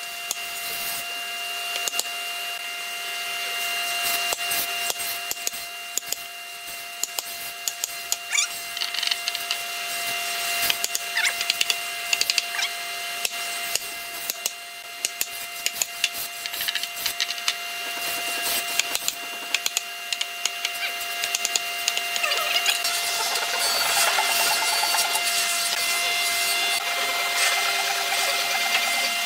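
Wood being worked with tools, sawing or rubbing, with many small clicks and knocks, over a steady machine hum.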